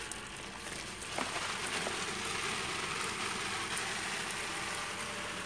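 Water spraying steadily from an overhead shower head and pattering down inside a shower curtain, with a faint click about a second in.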